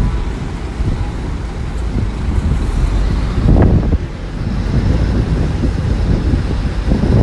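Bulldozer's diesel engine running with a steady low rumble, swelling briefly a little past halfway, with wind buffeting the microphone.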